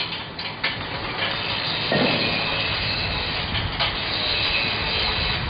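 Steady machinery running noise that sets in about a second in, after a few sharp metal clicks, with a single knock about two seconds in.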